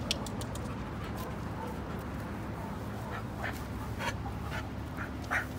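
A dog panting in a few short breaths, with some light clicks in the first second.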